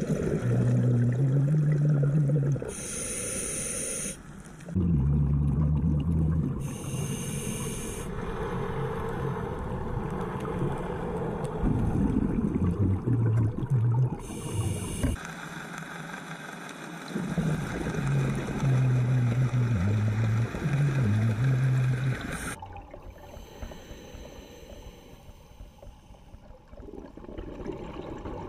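Scuba diver breathing through a regulator underwater: a short hiss on each inhale, then a longer low, buzzing rumble of exhaled bubbles, repeating every few seconds. It turns quieter near the end.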